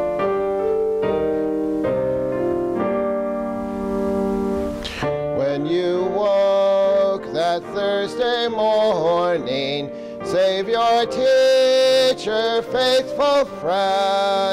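A piano plays the end of a hymn introduction in steady chords. About five seconds in, voices begin singing the hymn, with the piano accompanying.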